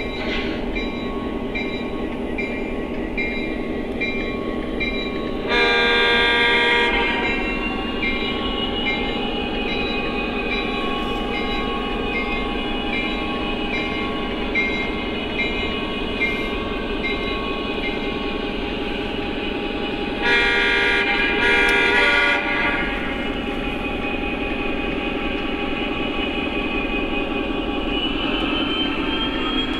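Lionel Legacy SD40 O gauge locomotive's sound system playing a diesel engine running, with a bell ringing in an even repeat. Two louder horn blasts, the first about six seconds in and the second, longer one about twenty seconds in, are the loudest sounds. A rising whine comes near the end.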